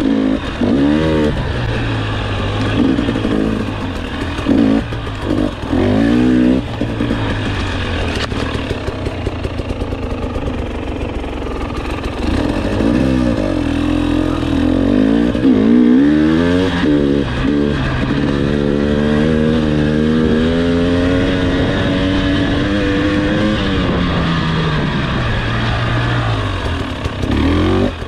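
Single-cylinder two-stroke engine of a KTM XC-W 300 TPI dirt bike under way, its pitch rising and falling with the throttle. Short blips come first, then longer pulls, a higher pitch held for several seconds, and a drop near the end.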